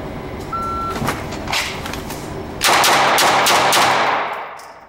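Shot-timer start beep, a short high tone about half a second in, then a Walther PPQ 5-inch pistol drawn from the holster and fired in a quick string of about five shots, starting roughly two seconds after the beep. The shots come a quarter to a third of a second apart and echo heavily off the range wall.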